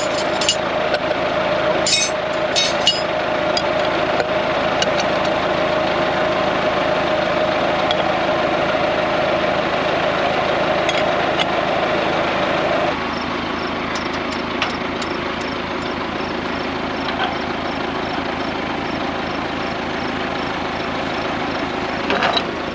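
International 574 tractor's 239 cubic inch four-cylinder diesel idling steadily. A few sharp clicks come in the first few seconds, and a steady whine over the engine stops about halfway through, leaving the idle a little quieter.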